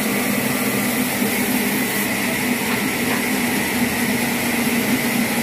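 Steady mechanical drone: a machine or motor running evenly, with a constant low hum and a higher whine over a hiss.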